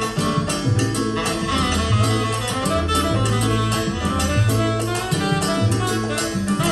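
Latin jazz big-band music, with brass and saxophones over a repeating bass line and percussion, played back through JBL Studio 630 loudspeakers.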